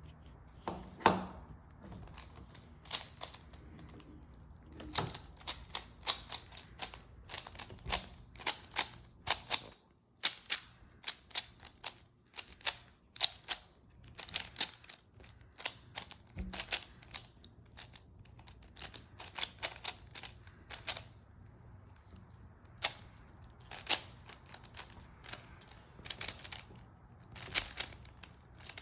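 Plastic 3x3 Rubik's cube clicking and clacking as its layers are turned fast by hand during a timed solve, in irregular quick runs of several turns a second with short pauses.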